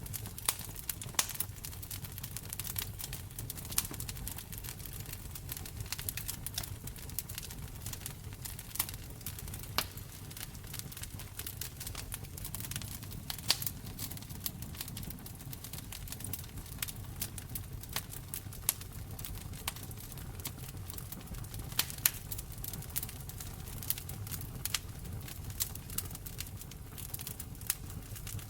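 Wood fire crackling in a fireplace: irregular sharp snaps and pops, a few louder than the rest, over a low steady rumble.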